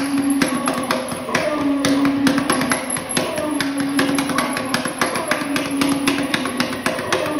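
Rapid hand drumming on a large ceramic drum sculpture, a dense run of quick taps and knocks, over a short low held tone that repeats roughly every two seconds as a loop.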